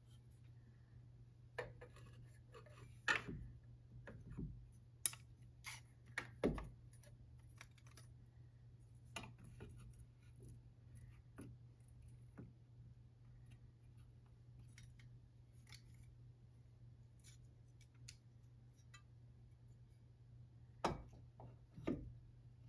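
Steel combination square being handled and set against painted door trim: scattered light clicks and taps with a few sharper knocks, bunched near the start and again near the end, over a faint low steady hum.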